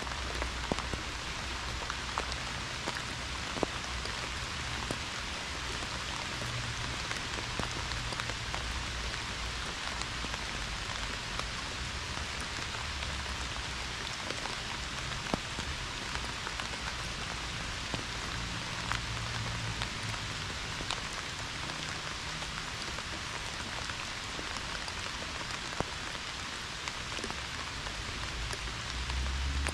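Pouring rain falling steadily, with scattered sharper ticks of single drops and a low rumble underneath that comes and goes.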